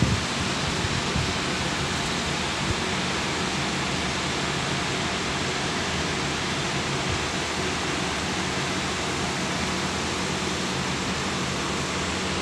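Steady, even roar of a garment factory floor: air-handling and machinery noise filling the large hall, with a faint low hum underneath.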